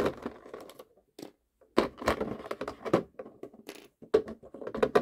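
Clear plastic packaging crinkling and rustling in irregular bursts as hands pull small figure parts out of it, with a short pause about a second in.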